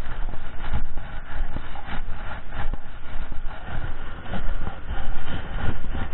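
Footsteps crunching and scraping through dry beach sand, with wind buffeting the camera microphone as a low rumble.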